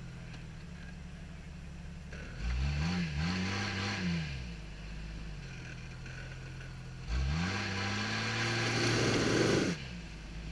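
Jeep Cherokee XJ engine idling, then revved twice under load: a short rise and fall about two seconds in, and a longer rev from about seven seconds. Near the end of the longer rev comes a rush of tyre spin as the Jeep fails to climb the obstacle.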